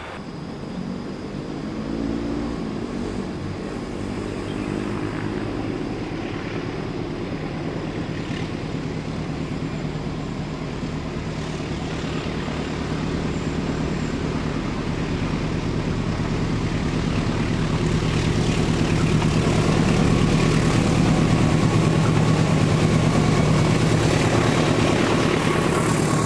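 Diesel locomotive hauling a passenger train as it approaches, its engine hum growing steadily louder. Near the end the carriages pass close by with wheel and rail noise.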